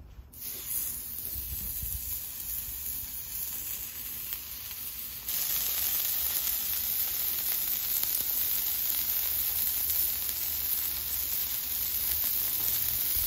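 Balls of 75/25 ground beef sizzling on a hot flat-top griddle steel with its burners on high, a steady frying hiss that jumps louder about five seconds in.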